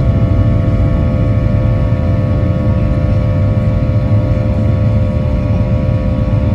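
Jet airliner engines at takeoff power, heard from inside the cabin as the plane lifts off and climbs: a loud steady rumble with a steady whine over it.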